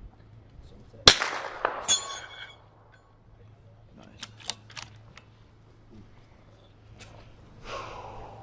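A single rifle shot about a second in, with a long fading tail and another sharp crack just under a second later. A few short sharp clicks follow about three seconds in.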